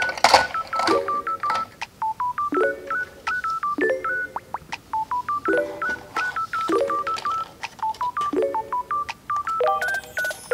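Background music: a simple melody of short, beep-like electronic notes stepping up and down, over a lower chord that comes back about every second and a quarter.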